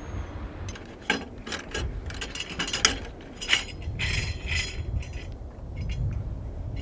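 Metal clicks and clinks of a Weber rotisserie skewer set being fitted onto the spit rod: scattered sharp clicks, a quick run of them near the middle, and a short metallic rattle about four seconds in.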